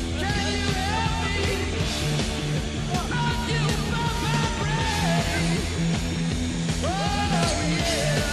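Rock music with bending vocal or lead-guitar lines over a steady bass beat.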